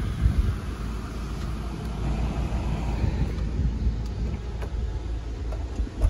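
2018 Buick Cascada's power soft top folding down, a steady mechanical run lasting several seconds over the car's idling engine.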